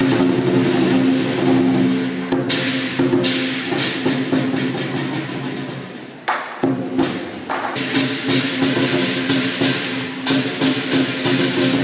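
Live lion dance percussion: a big lion dance drum beaten in a fast rhythm with ringing cymbal crashes. The playing drops off briefly about six seconds in, then picks up again.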